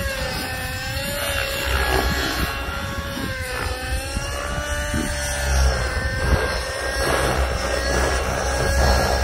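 Align T-Rex 600N nitro RC helicopter flying, its O.S. .55 HZ-R glow engine with tuned pipe and its rotors running, the engine pitch rising and falling several times.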